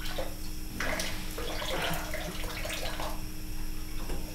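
Kitchen faucet running into a tablespoon and splashing into a stainless steel sink for about two seconds, after a brief spurt at the start.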